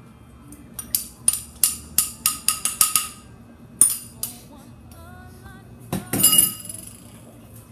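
A utensil clinking rapidly against a small glass bowl, about ten quick strikes with a slight ring, as egg white and lemon juice are mixed; two more clinks follow, then a louder clatter about six seconds in. Faint background music plays under it.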